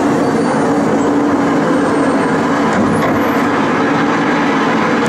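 Steady rushing noise of water moving a boat chute boat along its channel, with a steady low hum running under it.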